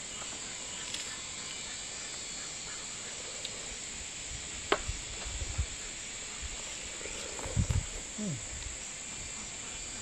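Steady high-pitched insect chorus, with a sharp click just before five seconds in and a few low thumps around seven and a half seconds.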